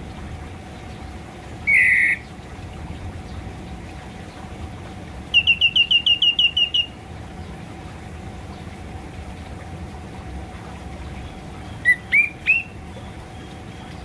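Orange-headed thrush calling: a short note about two seconds in, a quick run of about a dozen rising whistled notes near the middle, and three rising notes near the end, over a faint steady hum.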